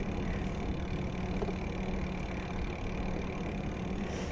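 Steady low road rumble with an even hum, the sort of noise picked up while riding along a wet road past traffic.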